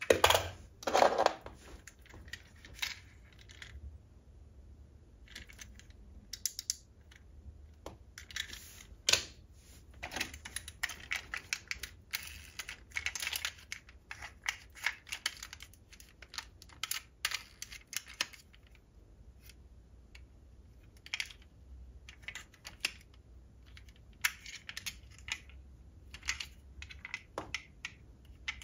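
Diecast metal model car, a Toyota GR Supra race car, being handled: irregular small clicks and clacks of its opening doors and metal body against fingers, nails and other model cars. A louder clatter comes right at the start, and a sharp click about nine seconds in.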